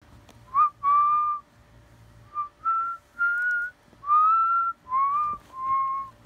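A person whistling a slow tune: eight held notes near the same pitch, some short and some long, gently rising and falling, with short gaps between them.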